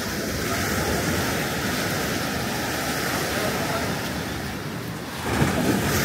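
Sea surf washing onto the beach, a steady rush of waves with wind on the microphone; it swells louder a little after five seconds in.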